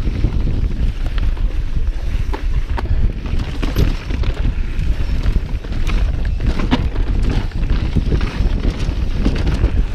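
A mountain bike rolling fast down a rocky dirt trail, with heavy wind rumble on the handlebar camera's microphone and frequent sharp clicks and rattles as the tyres and frame take rocks and bumps.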